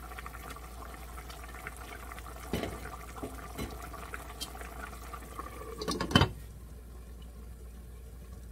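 Pot of kimchi jjigae bubbling as it simmers, with a few light knocks. About six seconds in, the glass lid clatters down onto the pot, and the bubbling then sounds quieter and muffled under it.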